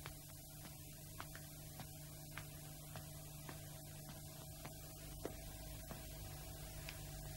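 Faint steady hum and hiss of an old film soundtrack, with light ticks coming about every half second or so.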